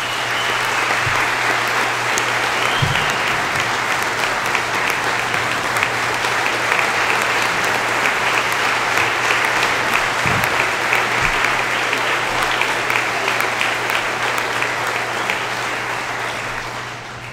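Audience applauding, a dense, sustained clapping that tapers off near the end.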